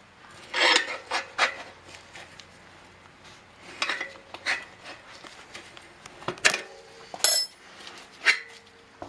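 Tire irons clanking and scraping against a motorcycle wheel rim while the tire bead is levered off by hand, about eight separate metal knocks and scrapes, one late knock leaving a short ring.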